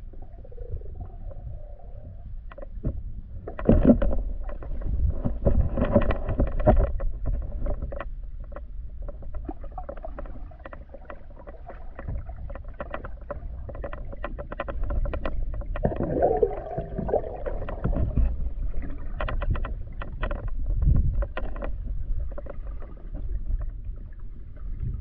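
Muffled underwater sound from a submerged camera: a steady low rumble of water moving around it, with many scattered clicks and knocks. It swells twice, about four seconds in and again around sixteen seconds in, with a brief gurgle as it does.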